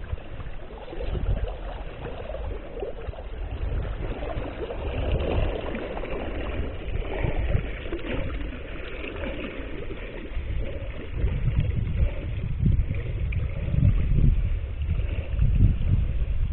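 Water trickling and gurgling along a sea kayak's hull as it moves through small waves, with irregular low gusts of wind buffeting the microphone, heavier in the second half.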